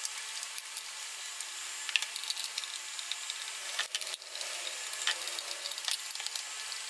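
Screwdriver turning out the screws of a plastic side-mirror frame, with light scattered clicks and scrapes of the tool and fingers on the plastic housing over a steady hiss.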